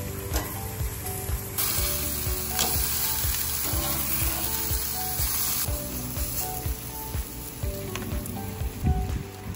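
Chicken breasts sizzling on the grates of a gas grill, the hiss strongest for about four seconds starting a second and a half in, with light clicks from metal tongs. Soft background music plays underneath.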